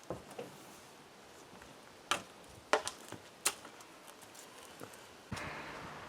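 A few sharp knocks and clicks, the strongest about two, three and three and a half seconds in, then a steady rushing noise with a low hum starts suddenly near the end.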